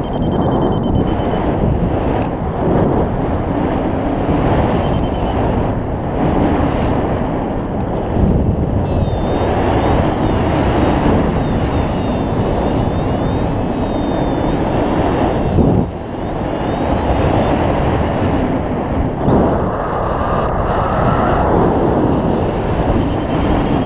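Airflow of a paraglider in flight rushing over the camera microphone: a loud, steady wind noise with small swells and dips.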